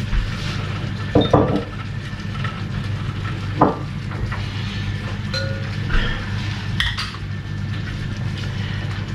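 Chickpeas tipped from a stainless-steel colander into an enamelled cast-iron pan of coconut milk, the metal colander clinking and knocking against the pan a few times, then a wooden spoon starting to stir them in. A steady low hum runs underneath.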